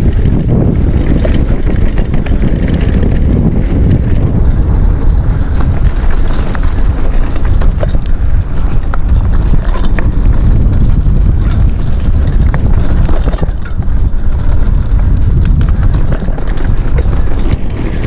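Mountain bike riding fast over a loose dirt trail: wind buffets the action camera's microphone with a loud, steady rumble, over tyre noise and scattered small clicks and rattles from the bike.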